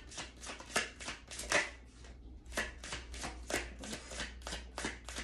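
A deck of cards shuffled by hand in quick strokes, about four a second, with a short break about two seconds in.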